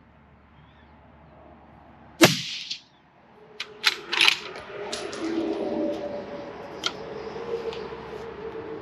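A single rifle shot from a bolt-action Ruger Precision Rifle about two seconds in, with a short ringing tail. It is followed about a second and a half later by a quick run of metallic clicks as the bolt is worked to eject the case and chamber the next round.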